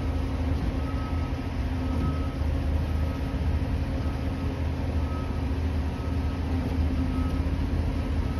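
Cat 336 excavator's diesel engine running steadily with its hydraulics working the shear head, a low rumble with a faint whine coming and going.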